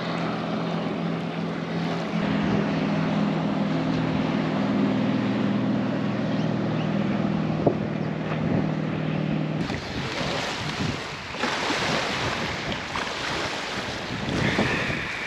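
A speedboat engine running with a steady hum for about nine and a half seconds, then an abrupt change to wind buffeting the microphone with a rushing hiss.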